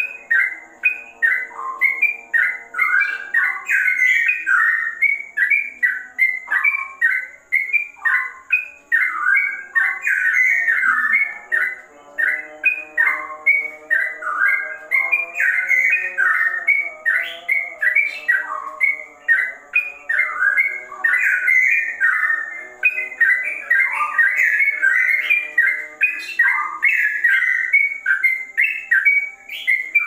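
Caged yellow-vented bulbul singing a fast, unbroken run of short whistled notes.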